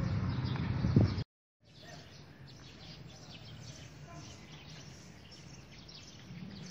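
Birds chirping, many short high calls over faint outdoor background noise. The first second holds a louder low rumble, which cuts off suddenly into a brief silence before the birdsong takes over.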